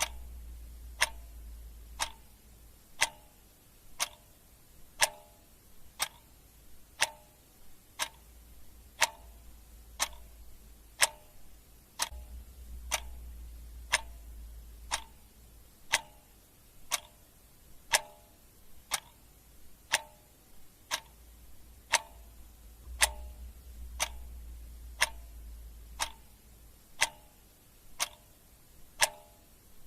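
Clock ticking steadily about once a second, alternating louder and softer ticks in a tick-tock pattern, over a faint low hum that comes and goes.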